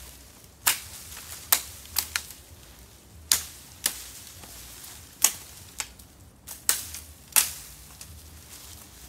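Machete blade chopping at a bamboo cane, about ten sharp cracks at uneven intervals as the side branches are roughly trimmed off.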